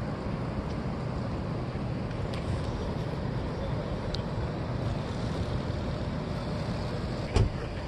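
Steady low rumble of outdoor background noise, with one short loud thump near the end and a few faint high ticks.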